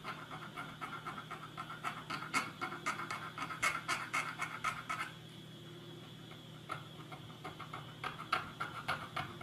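Small flat file rasping back and forth on the corners of a small part in quick strokes, about three to four a second, with a short pause about halfway through. It is lightly smoothing rough corners off a part that fits too tightly in its holes.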